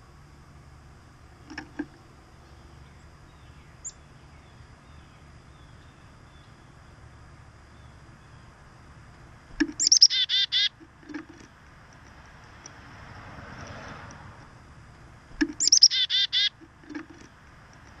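Black-capped chickadee giving its chick-a-dee call twice, about six seconds apart: each a quick high 'chicka' followed by a rapid string of 'dee' notes.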